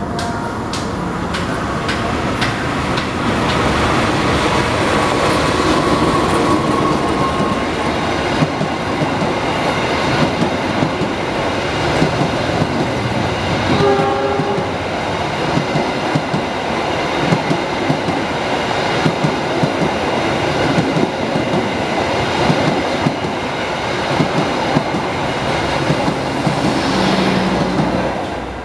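Diesel-hauled express passenger train running past close by: the locomotive and then a long string of coaches, wheels clacking over rail joints and points. A short multi-tone horn note sounds about halfway through, and the sound cuts off suddenly near the end.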